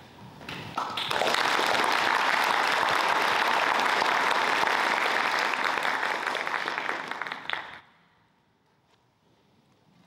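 Audience applauding. The clapping swells in about a second in, holds steady, and stops abruptly shortly before eight seconds.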